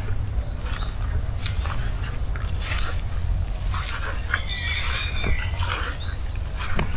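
Birds calling: a short rising call repeated every second or two, and a brief burst of wavering, warbling calls around the middle. Under them run a thin steady high whine, a low steady rumble and a few soft knocks of footsteps.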